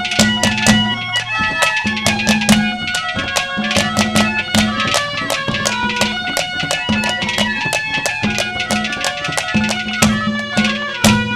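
Instrumental interlude of Haryanvi folk ragni accompaniment: fast, steady hand-drum strokes under a held melody line.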